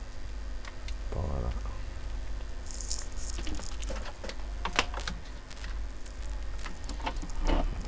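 Scattered light clicks and taps of hands handling a power cord and a plastic instrument case, with a brief rustle about three seconds in, over a steady low hum.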